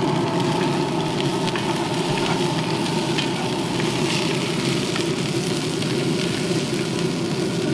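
Diced potatoes sizzling in a cast-iron Dutch oven on a grill, stirred with a wooden spoon that scrapes against the pot now and then. A steady low hum runs underneath.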